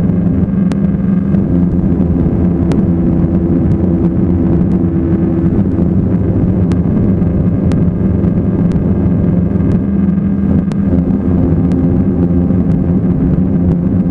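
Ambient electronic music: a sustained low droning chord, with a higher held note coming in for a few seconds early on and again near the end, and a faint tick about once a second.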